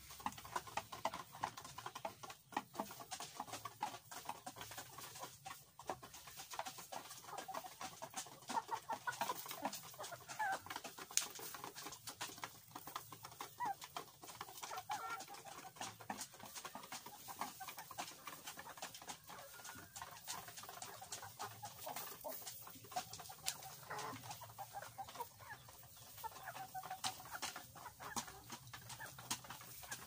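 Hens clucking while they feed, with many small irregular taps of beaks pecking at feed in a wooden trough.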